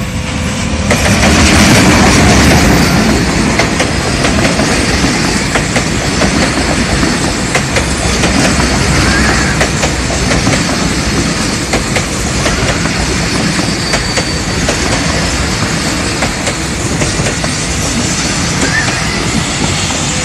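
Diesel-hauled passenger train passing close by. The locomotive's rumble swells to its loudest about two seconds in, then the coaches roll past with a steady rumble and the rapid clickety-clack of wheels over the rail joints.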